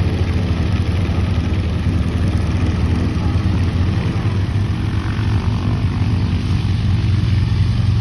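Propeller aircraft engines running with a steady, loud low drone.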